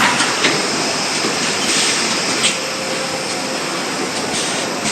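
Heat-sealing machine running: a loud, steady mechanical hiss that jumps up suddenly at the start, with sharp clicks about half a second in and again about two and a half seconds in.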